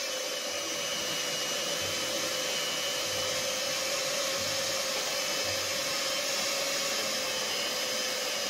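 Electric mixer running steadily in a bowl of stiff bagel dough, an even motor whine.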